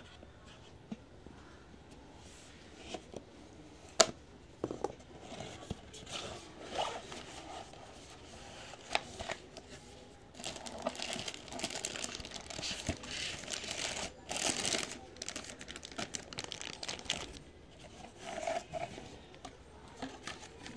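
Clear plastic bag wrapping crinkling as it is handled inside a cardboard box, densest from about ten to seventeen seconds in. A single sharp snap about four seconds in is the loudest sound.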